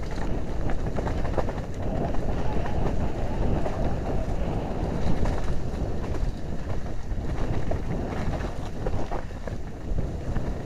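Mountain bike riding fast down a leaf-covered dirt trail: the tyres rumble over dirt, leaves and roots, and the bike gives frequent sharp rattles and knocks over bumps. Wind buffets the helmet-mounted microphone.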